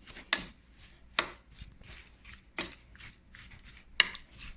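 Knocks and clacks against a bowl as sliced chicken is mixed with oil and spices: a few sharper knocks every second or so, with fainter clicks between.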